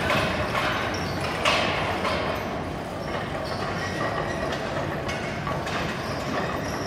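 Hoofbeats of a six-horse hitch of Belgian draft horses trotting on a dirt arena floor, mixed with the rumble of the hitch wagon rolling behind them.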